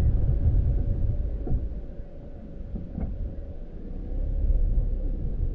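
Vehicle driving on a dirt road: a low rumble of tyres and engine, with a couple of faint knocks. It eases off for a couple of seconds in the middle, then builds again.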